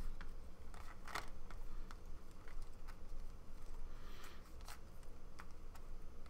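Panini Prizm basketball trading cards being flipped through by hand, a scatter of light, irregular clicks and slides as the cards are moved one by one.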